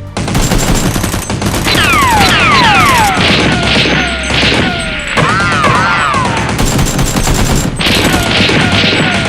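Dubbed-in automatic gunfire sound effects in long, rapid bursts, overlaid with repeated falling whistles like bullets whizzing past and a short wavering tone about halfway through.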